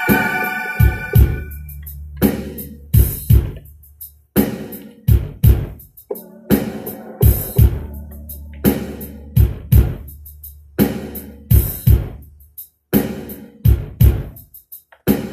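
Electronic keyboard gospel music in a drum break: a sparse drum-machine beat over a low bass line. The held chords drop out about a second in and come back right at the end.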